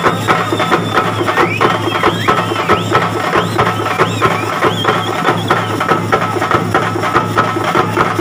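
Fast, steady festival drumming on hand-carried barrel and frame drums, with a shrill high wavering tone over it that stops about six seconds in.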